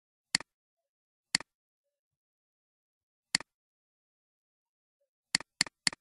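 Computer mouse button clicking: three separate clicks a second or two apart, then a quick run of clicks about four a second near the end. Each click is a sharp press followed by a softer release.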